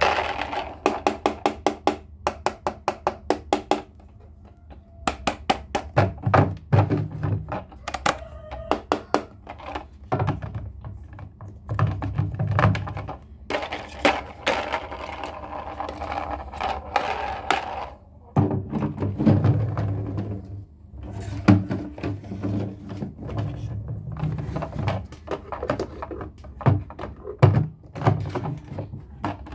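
Hard plastic toys clicking and knocking as they are handled. It opens with a quick run of clicks, about five a second, then goes on as irregular knocks and low thumps.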